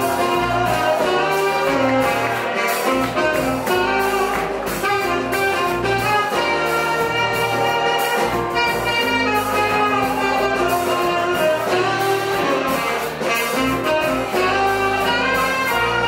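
Live jazz band playing an instrumental passage: saxophone leading over keyboard, bass guitar and drums kept in a steady beat.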